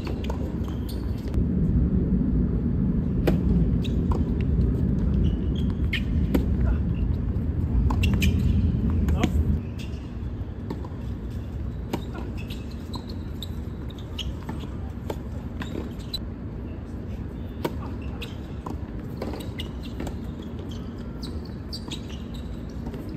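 Background murmur of voices with scattered sharp knocks and clicks; a louder low rumble drops away about nine and a half seconds in.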